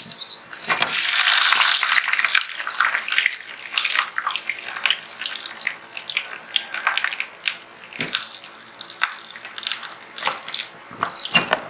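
Water running from a tap with a hissing rush for a couple of seconds, then irregular splashing and small knocks as parts are rinsed in water.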